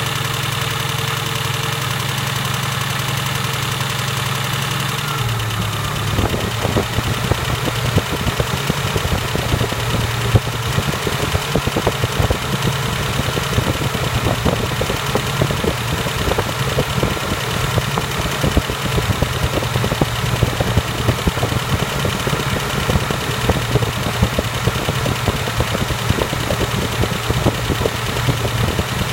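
A motor running with a steady hum. About five seconds in the hum drops slightly in pitch and an irregular rattle of fast clicks joins it.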